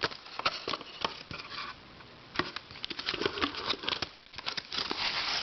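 Rapid, irregular clicking and crackling as small puzzles are handled and set down, with denser clusters of clicks about halfway through and again near the end.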